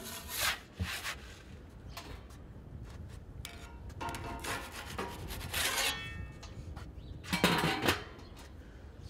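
Metal pizza peel scraping across a floured steel work table as it slides under a pizza, then scraping and rattling as the pizza is slid off onto the grill's pizza plate, with brief metallic ringing. Near the end comes a louder metal clatter as the domed grill lid is set back on.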